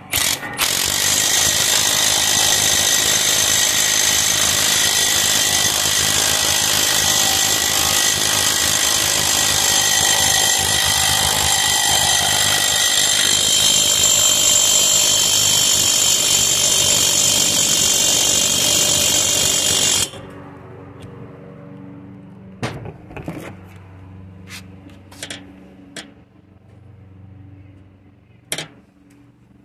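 Milwaukee 3/8-inch cordless impact wrench on its highest setting, hammering a flywheel nut tight on a single-cylinder diesel engine. It runs flat out for about twenty seconds, driving the nut toward its 135 ft-lb torque, then stops abruptly.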